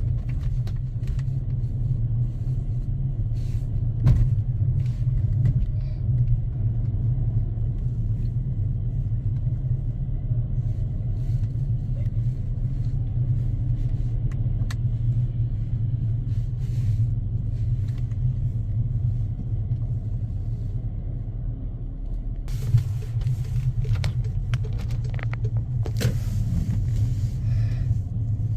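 Car driving slowly, heard from the moving car: a steady low engine and road rumble, with a sharp knock about four seconds in and more hiss near the end.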